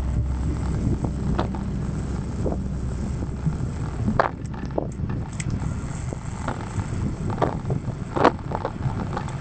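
Strong gale wind buffeting an action camera's microphone on a moving bicycle, a steady low rumble with a few sharp clicks or knocks scattered through it.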